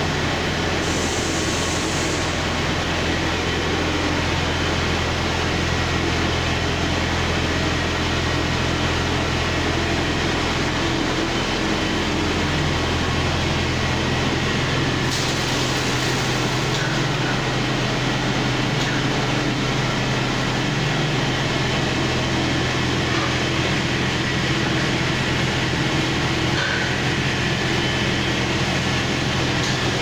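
Baler-twine production line running: inflow twister and tape-line machinery giving a steady mechanical drone with a low hum.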